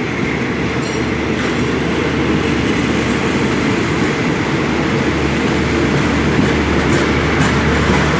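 Passenger train running along the line, heard from on board: a steady, loud rumble of wheels on rail with a few short clicks.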